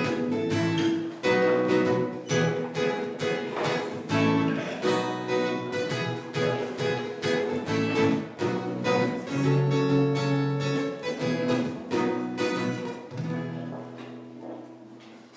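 Acoustic guitar strummed in a steady rhythm, with chords played live. The last chord rings out and fades near the end.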